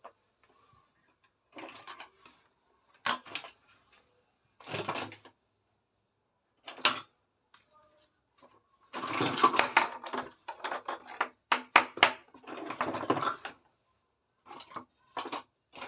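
Plastic toy kitchen pieces clicking and clattering as they are handled, in scattered bursts with pauses between, busiest in the second half.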